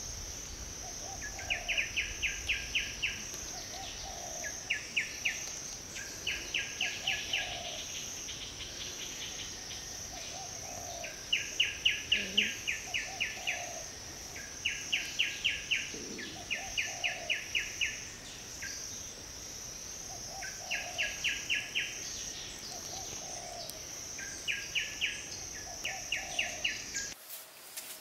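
Forest insect and bird ambience: a steady high-pitched insect drone, with bursts of rapid chirps repeating about every two seconds and a short lower call between them. The ambience drops away suddenly near the end.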